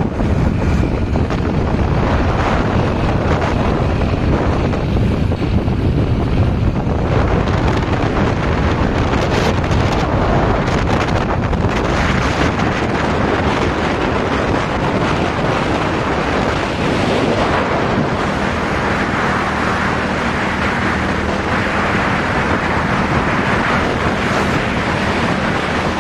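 Wind buffeting the microphone of a moving motorcycle, a loud, steady rush. A low, steady hum from the motorcycle comes through more plainly in the second half.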